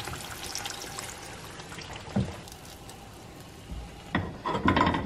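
Breaded pickle slices frying in hot oil in a pan: a steady sizzle with fine crackling. A single knock about two seconds in and a few clicks near the end come from metal tongs lifting the pickles out.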